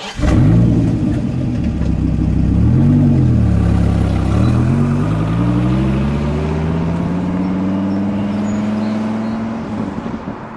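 Dodge Viper's V10 engine comes in suddenly and loudly, revs up and down once, then pulls away, its pitch climbing steadily as it accelerates before easing off near the end.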